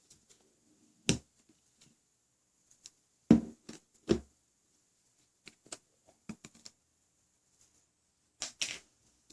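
Clear jiggly slime being pressed and squished by hand, giving scattered sharp clicks and pops. The loudest come about a second in, twice between three and four seconds in, and in a short cluster near the end.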